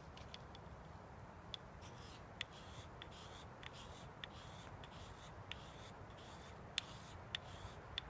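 Knife blade shaving curls off a stick of wood as tinder: a series of faint, short scraping strokes, about one or two a second, with a few sharp ticks among them.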